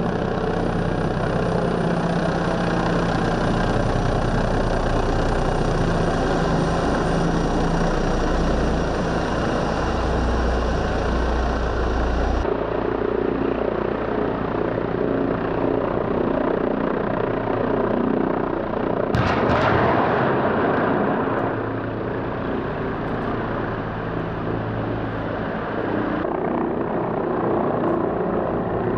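Formation of military attack helicopters flying over, a steady loud rotor and turbine drone. The sound changes abruptly about twelve seconds in, and a sudden louder rush swells up about two-thirds of the way through and fades over a couple of seconds.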